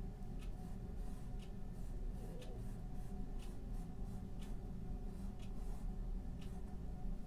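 Paintbrush stroking across a canvas, a soft brushing scrape about once a second, over a steady low hum.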